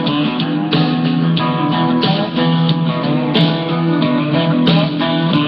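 Guitar-led song in an instrumental passage with no singing: strummed and plucked guitar with a steady beat.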